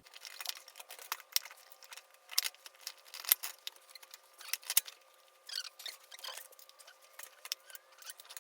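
Irregular quick clicks and light metallic clinks of hand tools and small metal parts being handled, thin-sounding with no low end.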